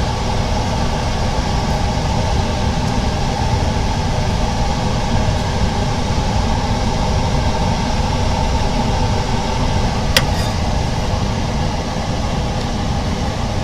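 Steady mechanical hum of running machinery, with one sharp click about ten seconds in.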